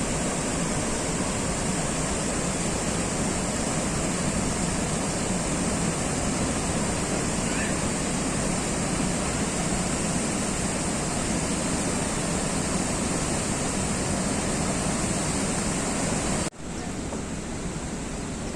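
Steady rushing of falling water, an even roar with no let-up. Near the end it cuts off abruptly and resumes slightly quieter.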